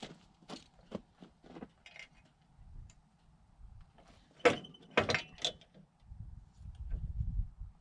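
Scattered knocks and clinks of handling, with one sharp knock about four and a half seconds in and a short clatter just after.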